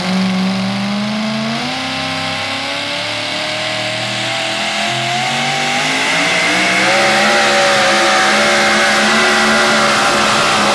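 Supercharged engine of a super modified four-wheel-drive pulling truck at full throttle under the load of the pulling sled. It comes in loud at once, its pitch climbs in steps over the first few seconds, then holds higher and a little louder.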